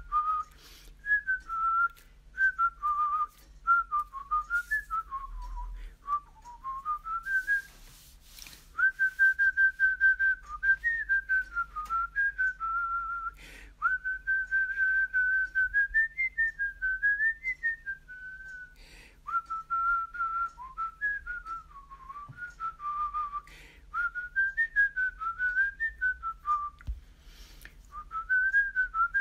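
A person whistling a slow melody, one clear tone that slides up and down, in phrases with short pauses between them.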